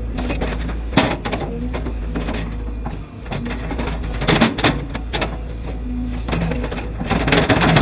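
20-ton excavator's diesel engine running steadily, with irregular bursts of scraping and clattering from the bucket working the soil while shaping a slope; the loudest burst comes near the end.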